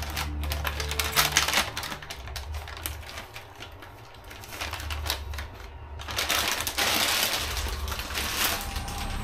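Background music with a steady bass line, over quick light clicking and rattling about a second in and again from about six seconds in.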